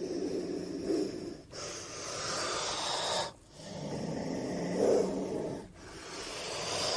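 Velociraptor creature sound effect: a run of long, breathy snorting breaths, each about two seconds long, with brief breaks between them.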